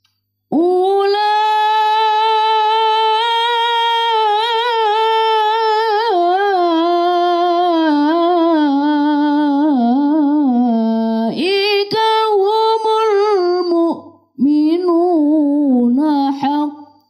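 A boy chanting Quran recitation in the melodic tilawah style into a microphone. A long held note opens about half a second in, followed by wavering, ornamented runs that dip lower and climb again, with short breath pauses near the end.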